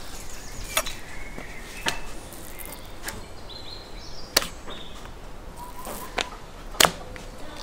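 Knife work on a wooden cutting board while slicing raw beef thin: about six sharp, irregularly spaced knocks of the steel blade against the board.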